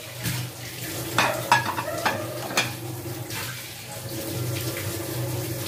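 Steel plates and bowls clinking as they are wiped with a cloth and set down, with a few sharp knocks between about one and two and a half seconds in, over a steady low hum.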